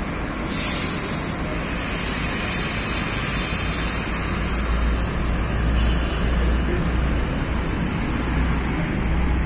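Coach bus engine idling with a steady low rumble. About half a second in comes a sudden loud hiss of air that fades away over a few seconds.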